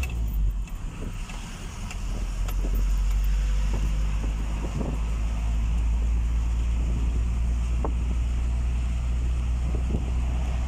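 Car driving at a steady speed: low, steady road and engine rumble heard from inside the moving car.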